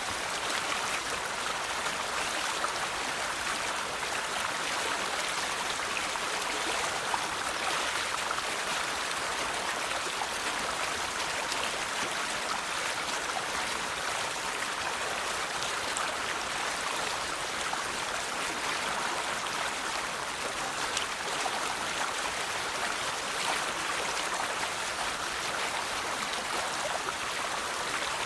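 River water flowing over rocks: a steady rushing and babbling with fine splashes, even in level throughout.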